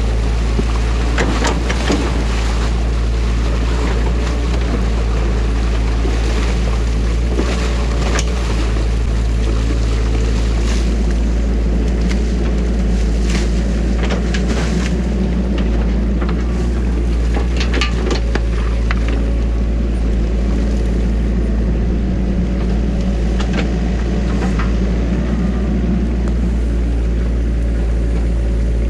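New Holland mini excavator's diesel engine running steadily under hydraulic load, with repeated clanks and scrapes as the bucket digs into the mud and sticks of a beaver dam. Water rushes through the breached dam underneath.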